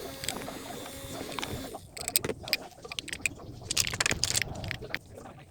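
Steady hiss, then from about two seconds in a run of irregular sharp clicks and knocks from a phone holder being worked on by hand.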